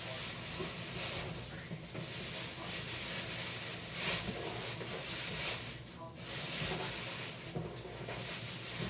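Thin plastic trash bags rustling and crinkling as they are handled and pulled over one another to double the bag.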